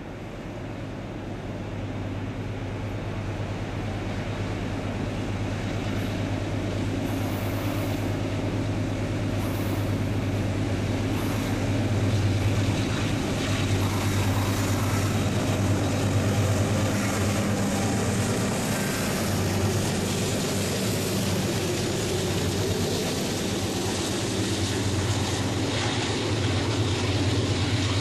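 Canadian Pacific GE AC4400CW diesel locomotive's 16-cylinder engine running under load, growing steadily louder over the first dozen seconds as the freight approaches and passes. It is followed by the steady rolling of loaded grain hopper cars going by.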